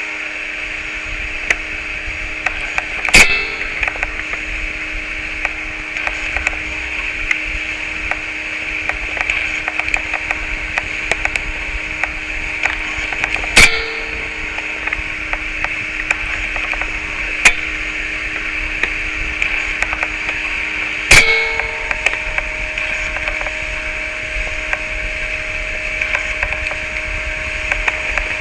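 Experimental noise music: a steady hiss over low droning hum tones, broken by three loud sharp cracks and scattered small clicks. About two-thirds of the way through, the low drone gives way to a higher steady tone.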